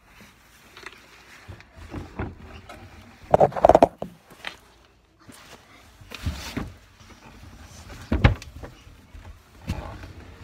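Knocks and rustling from a handheld phone being moved and bumped, with a loud cluster of knocks about three and a half seconds in and another sharp knock about eight seconds in.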